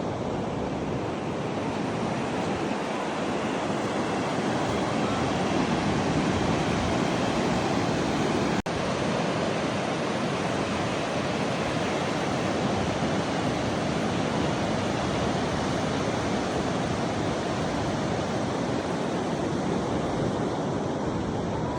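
Steady rush of Pacific Ocean surf mixed with wind. It breaks off for an instant about eight and a half seconds in.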